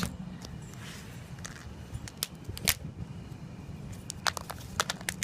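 Plastic housing of an old flip phone being bent and snapped apart by hand: a few sharp cracks and clicks, with more of them close together near the end.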